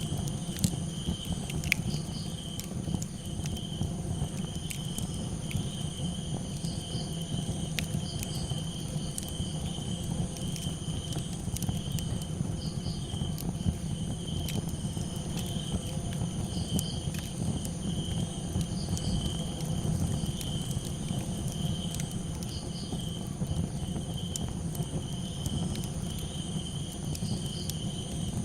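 Crickets chirping in a steady pulsing trill over a crackling campfire, with scattered sharp pops and a constant low rumble underneath.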